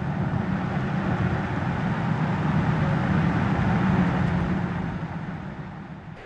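Mercedes-Benz GLE SUV driving at speed, its engine note and road noise growing louder, then fading over the last couple of seconds.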